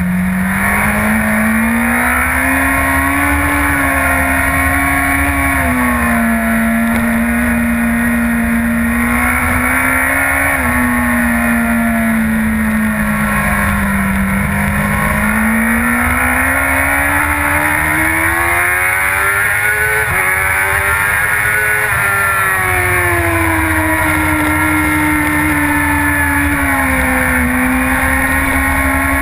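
Sportbike's inline-four engine heard from on board at speed, its pitch climbing under throttle and stepping down as the rider shifts or backs off for corners: a couple of drops in the first third, a long climb through the middle, then falling back near the end. A steady wind rush lies under the engine.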